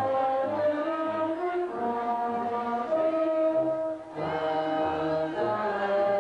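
Brass band playing a slow tune in held chords, with a short break about four seconds in.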